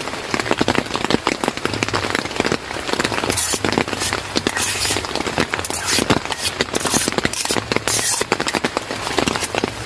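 Rain falling, a dense, irregular clatter of drops striking a surface close by, with a few heavier gusts of hiss midway.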